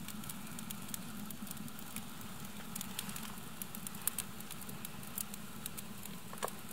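Small wood-stick fire crackling in a mud-and-stone fireplace, with irregular sharp pops and snaps over a steady background.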